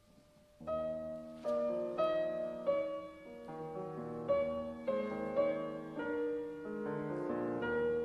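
Solo piano playing a slow piece: after a faint fading note, chords come in about half a second in and go on in overlapping, ringing notes.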